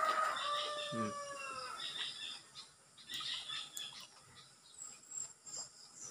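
A rooster crowing, one long call that trails off about two seconds in, followed by faint scattered clicks.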